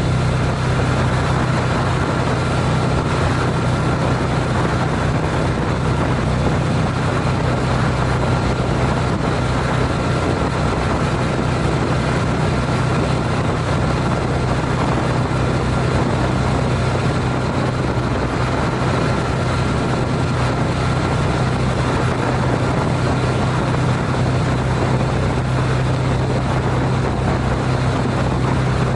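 Honda CTX700N's 670 cc parallel-twin engine running steadily at highway cruising speed, about 70 mph, under a constant rush of wind and road noise on the bike-mounted action camera.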